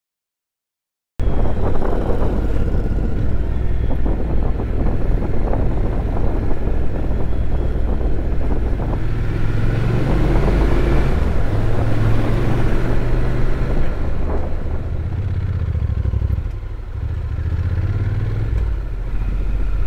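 Honda NC750X's parallel-twin engine running steadily under way, heard from on the bike with a haze of wind rush. The sound starts after about a second of dead silence.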